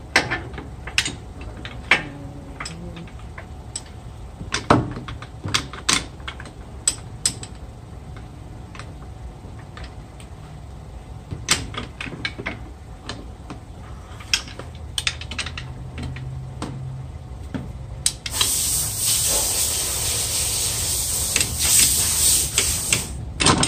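Irregular metal clicks and knocks of a pry tool worked against the CV axle and transmission to pry the right front axle out. About 18 seconds in, a loud steady hiss starts and runs for about five seconds.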